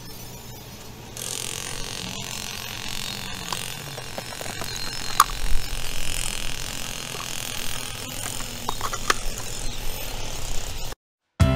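Hand digging in a stony pit: soil and gravel scraped and scooped, with scattered sharp clicks of stone against stone or tool. The sound stops abruptly just before the end.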